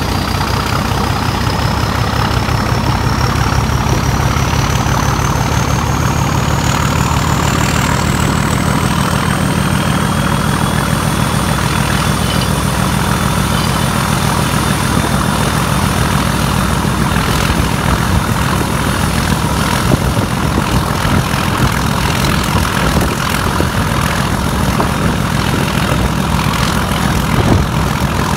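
Class 31 diesel locomotive, its English Electric V12 engine, running under power, heard from alongside on the moving train: a loud, steady low rumble, with a high whine that rises in pitch over the first ten seconds or so and then holds steady.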